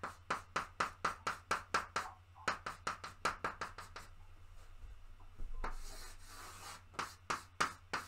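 Chalk drawing on a blackboard: a quick run of short scratching strokes, about four or five a second, then a longer scrape and a few more strokes near the end.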